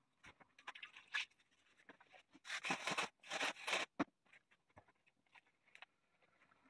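Felt hat body and a cloth being handled, crumpled and stuffed, giving rustling and scraping with small clicks. Two louder rustles come close together a little past the middle.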